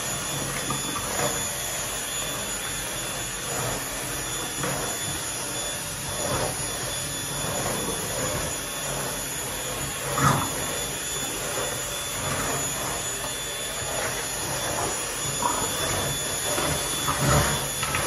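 WAP stick vacuum cleaner running steadily, with short irregular sounds over it and a brief knock about ten seconds in.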